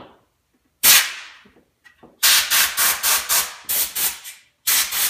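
Compressed-air blow gun on a shop air hose blowing dust out of a car's instrument-cluster bezel. One long blast about a second in, then a quick run of short blasts, about three or four a second, with a brief break near the end before the blasts resume.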